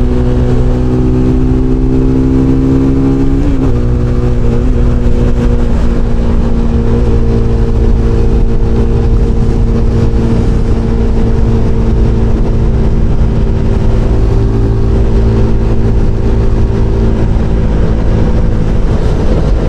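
SBM 250 S motorcycle engine running at a steady high cruising speed, its pitch holding even apart from a brief waver about three and a half seconds in, with a rush of wind underneath.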